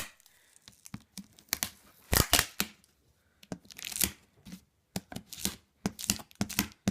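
Parcel packaging being torn open by hand: a series of short, irregular rips with some crinkling.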